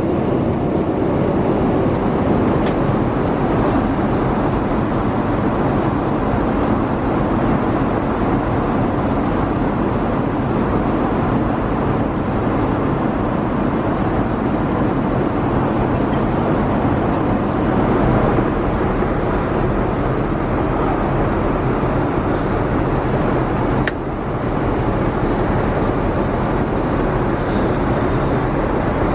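Steady cabin noise inside a Boeing 787 airliner: an even, loud rush of air with a low rumble underneath. It dips briefly for a moment near the end.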